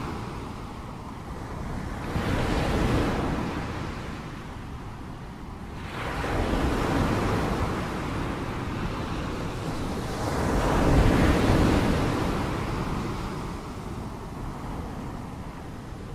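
Ocean surf: waves breaking and washing up the beach, the sound swelling and fading three times, the loudest near the two-thirds mark.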